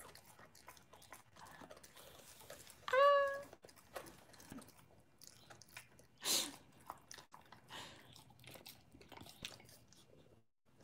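Boxer dog chewing and crunching a cone treat, with scattered small clicks of the bites and a louder crunch about six seconds in. A short vocal sound comes about three seconds in.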